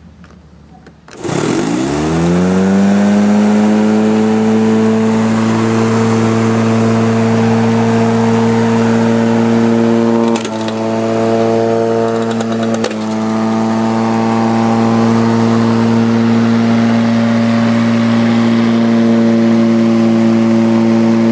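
Corded electric lawn mower (Greenworks) spinning up about a second in and running steadily. Twice, at about ten and thirteen seconds, its pitch dips briefly with sharp knocks as the blade strikes and cuts through an iPhone 6.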